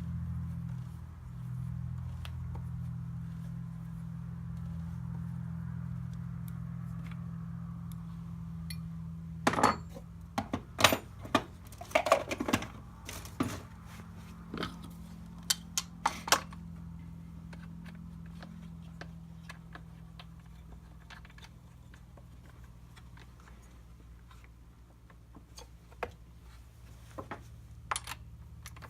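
Metal clinks and clacks of parts and tools being handled while a chainsaw is put back together. Most of the sharp knocks come in a cluster about ten seconds in, with a few more near the end, all over a steady low hum.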